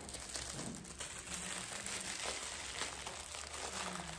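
Clear plastic gift wrapping crinkling and rustling in irregular crackles as a small wrapped gift is pulled open by hand.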